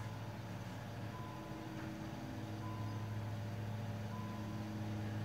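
A machine's steady low hum, with a faint short high beep repeating about every second and a half.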